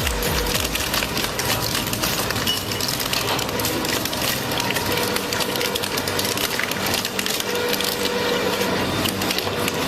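Heavy scrap-processing machinery crushing and breaking material, with a continuous crackle of cracking and snapping and a faint steady whine.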